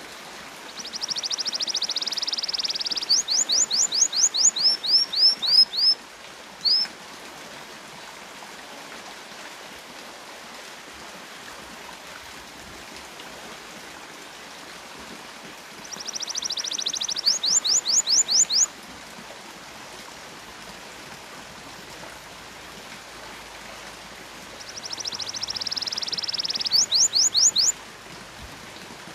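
Domestic canary singing three song phrases several seconds apart. Each phrase opens with a fast, high trill and ends in a run of quick rising 'cuit cuit' whistles.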